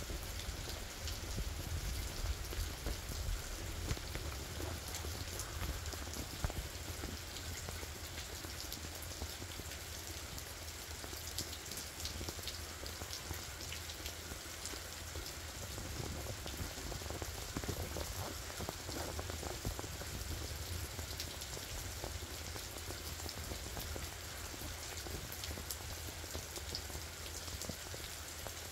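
Steady spring rain falling, many small drop ticks over an even hiss, with a low rumble underneath.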